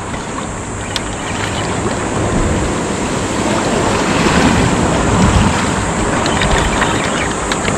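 Wind rushing over the microphone together with the wash of water, rising slightly in loudness, with a couple of faint clicks.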